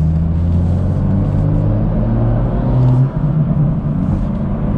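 BMW M2's N55 turbocharged straight-six engine under way, heard from inside the cabin. The engine note climbs steadily, then drops briefly about three seconds in and carries on at a lower pitch.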